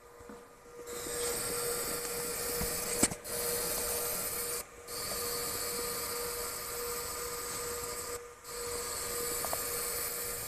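Laser marking machine engraving a part turned in its rotary chuck: a steady hiss that starts about a second in and drops out briefly three times, over a steady hum. There is a sharp click about three seconds in.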